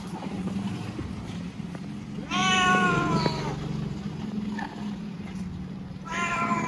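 A street cat meowing twice. Each meow lasts about a second and drops a little in pitch at the end; the second comes near the end.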